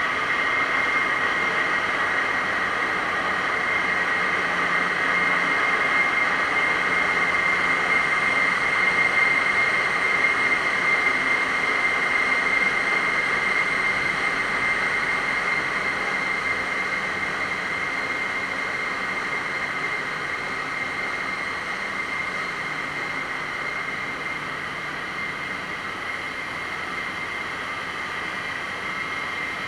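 Steady, loud din of a container ship's engine-room machinery running, with a high, steady whine on top. It eases slightly over the last third.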